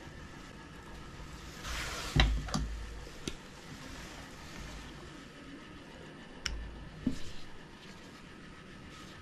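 Handling noise from working an electrical cable and a wire stripper on a stone countertop: a brief rustle about two seconds in that ends in a sharp knock, then a few scattered clicks and taps.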